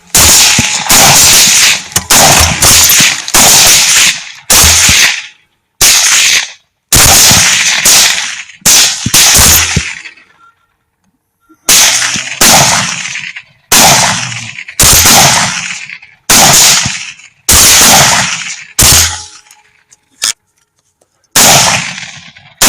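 Rapid rifle fire, around thirty loud shots at about two a second, broken by two short pauses of a second or two, about halfway through and near the end.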